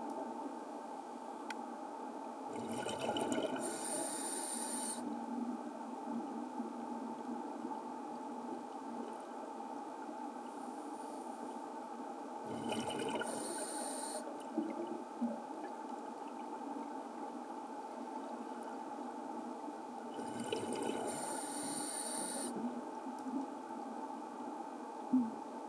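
Scuba diver breathing through a regulator, heard underwater: three bursts of exhaled bubbles, about eight seconds apart, over a steady underwater hum.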